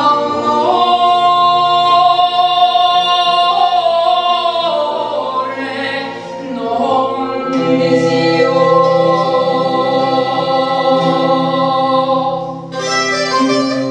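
A woman singing a slow melody of long held notes over plucked string instruments. Near the end, the plucked strings come to the fore.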